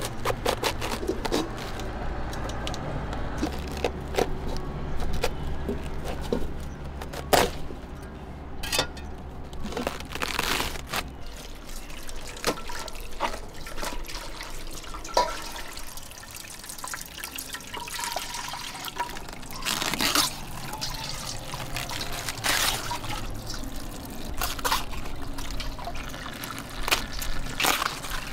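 Water trickling and splashing as cabbage leaves are washed by hand, with scattered clicks and knocks of the leaves and container.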